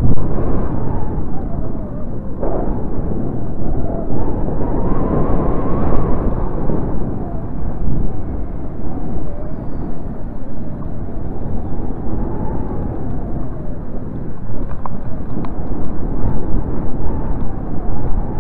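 Loud wind buffeting the microphone of a camera carried aloft on a kite, a gusty rumble that swells and dips.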